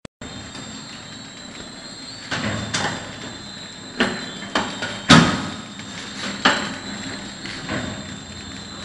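Horizontal flow wrap machine running: a steady mechanical hum with a thin high whine, broken by a series of sharp clunks and knocks every half second to a second or so, the loudest about five seconds in.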